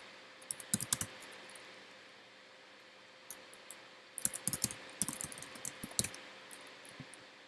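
Typing on a computer keyboard in irregular bursts, a short run of keystrokes about half a second in and a longer run from about four seconds in, over a faint steady hum.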